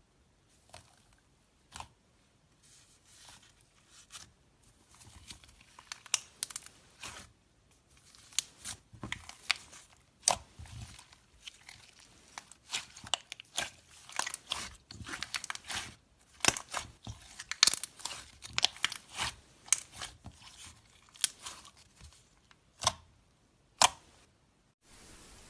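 Slime being squished and worked by hand, giving irregular sharp clicks, pops and crackles. The pops are sparse at first, come thick and fast through the middle, and thin out to a couple of loud single pops near the end.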